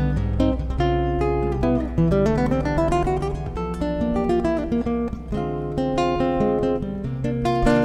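Nylon-string classical guitar played solo and fingerpicked: a melody of plucked notes over bass notes, with a quick rising run of notes about two to three seconds in.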